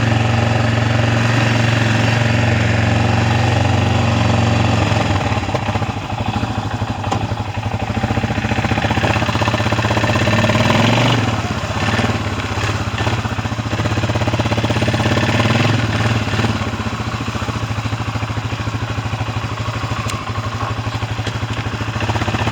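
Small engine of a homemade off-road vehicle, just restarted after stalling, running steadily at first; from about five seconds in, its note wavers and varies as the vehicle is ridden.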